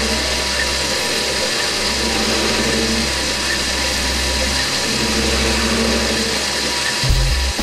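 Wabeco D6000E lathe running under electronic lead screw feed while its tool cuts a 10-degree taper in an aluminium bar: a steady mechanical running and cutting noise. Music with a choppy bass line comes in near the end.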